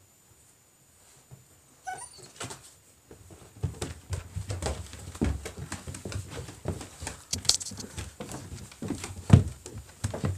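A Great Pyrenees puppy gives a brief whine about two seconds in. From then on come irregular knocks, scuffs and rumbling bumps as the puppy jostles against the camera.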